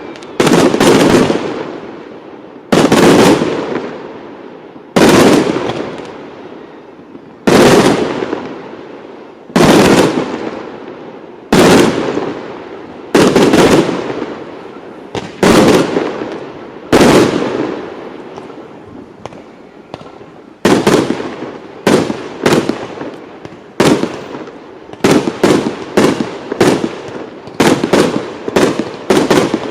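Aerial firework shells bursting in loud bangs, each ringing out and dying away. They come about every two seconds, then from about twenty seconds in they speed up to several bangs a second.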